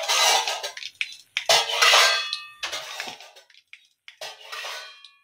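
Hot coconut oil with mustard seeds sizzling and spattering in an iron wok, in about four uneven swells that die down near the end.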